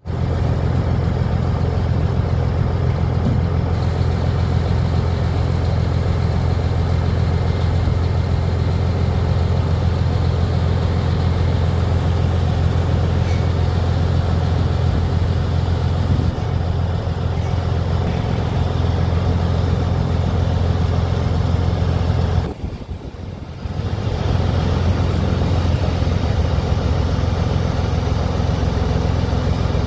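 Mercedes-Benz LS-1929 truck's diesel engine running steadily with a deep, even hum, dropping away briefly about three-quarters of the way through.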